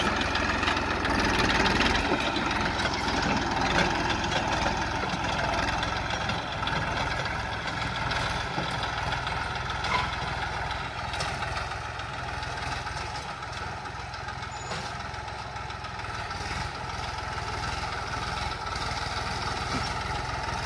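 TAFE 45 DI tractor's diesel engine running steadily while pulling a plough through soil, growing fainter as the tractor moves away and picking up a little again near the end.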